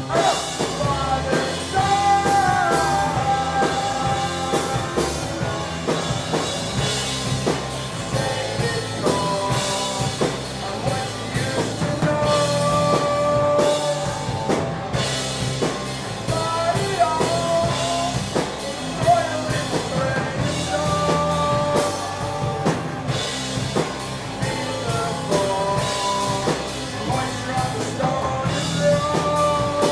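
Indie rock band playing live: drum kit and amplified instruments, with a sung vocal line over them.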